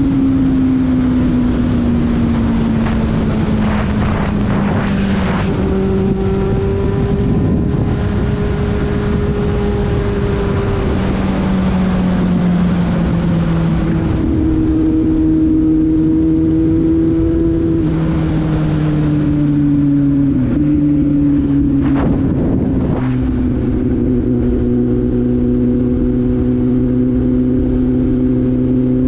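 Kawasaki Z750 inline-four motorcycle engine running under way. Its note slowly falls, then jumps to a new pitch several times as the throttle and gears change, with wind rushing over the microphone.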